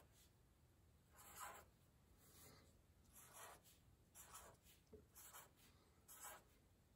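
Faint scratching of a marker tip drawing small circles on paper, in short strokes about once a second.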